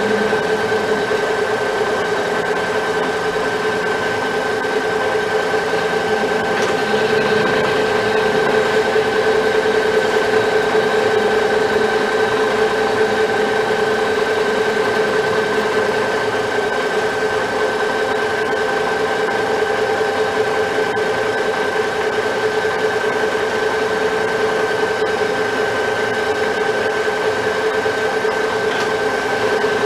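Metal lathe running with its chuck spinning a round steel workpiece: a steady whine from the machine.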